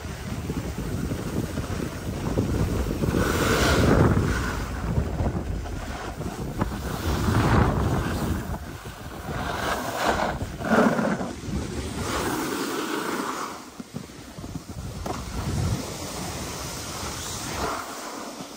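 Skis sliding and scraping over groomed snow, the hiss swelling and easing with the turns, with wind buffeting the microphone.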